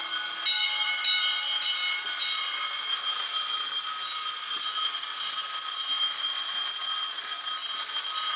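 Vintage Autocall coded fire alarm: its 10-inch single-stroke bells strike four times, about two strikes a second, sounding out the code. After that a steady, unbroken bell ringing carries on.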